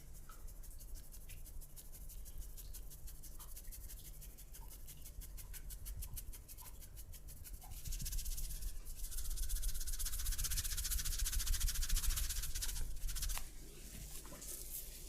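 Hands rubbing rapidly over skin and hair in a massage: a fast, even scratchy rhythm of several strokes a second. About eight seconds in it turns louder and denser, then it stops suddenly near the end.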